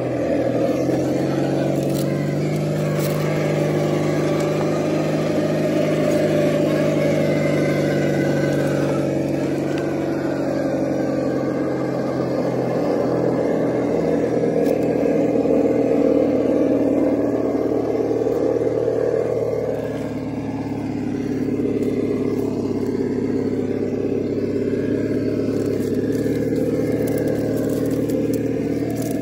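Engine sound simulator on a Redcat Ascent RC rock crawler playing a simulated truck engine through its speaker. The revs rise and fall with the throttle, easing off briefly about two-thirds through.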